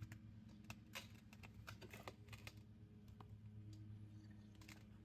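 Faint small clicks and taps of a rubber fuel line and grommet being worked by hand into a chainsaw's plastic housing, over a low steady hum.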